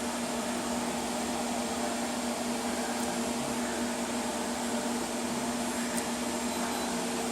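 Power Jack inverter running: a steady electrical hum under an even, fan-like whir.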